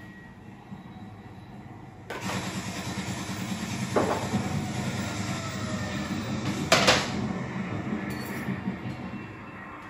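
Dishes clattering as a dishwasher is unloaded, with two sharp clinks about four and seven seconds in, over a steady noise that starts abruptly about two seconds in.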